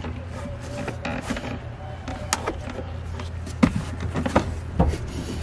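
Scattered clicks and knocks of plastic interior trim and carpet being handled and tucked back into place, over a steady low hum.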